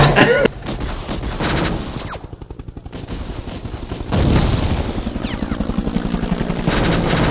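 Battle sound effects: rapid machine-gun fire mixed with a helicopter's rotor chop, a fast even pulsing that drops back briefly and then comes in louder about four seconds in.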